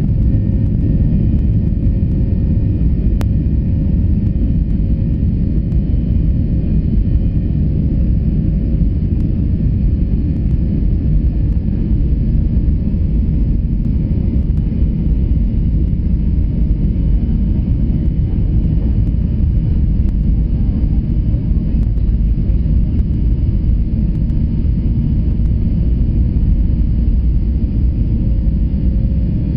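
Airliner cabin during the take-off roll: jet engines at take-off thrust over a steady, heavy low rumble from the wheels on the runway, with faint steady whining tones above it.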